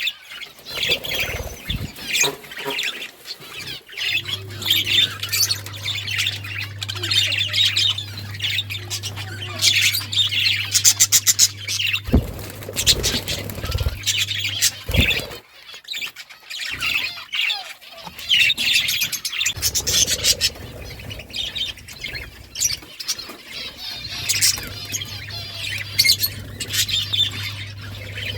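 A group of budgerigars chattering: rapid chirps, warbling and rattling ticks with occasional squawks. A low steady hum comes and goes underneath, and there are a few dull thumps around the middle.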